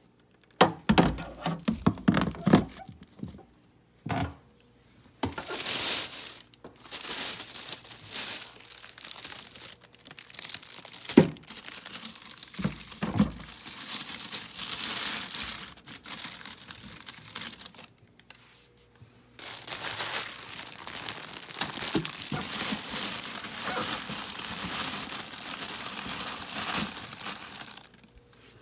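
Plastic crinkling and rustling as things are handled, with a few sharp knocks and low thuds in the first half and a short pause about two-thirds of the way through.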